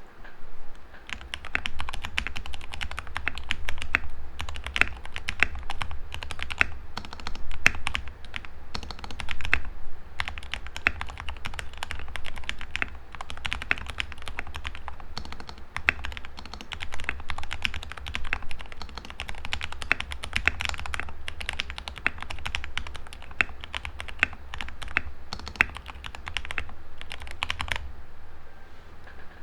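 Modded mechanical keyboard being typed on continuously: a dense, irregular stream of keystroke clacks. It has lubed Gateron Yellow KS-9 linear switches and Tai-Hao Cubic keycaps, in a tape-modded Vortex VX5 friction-mount case.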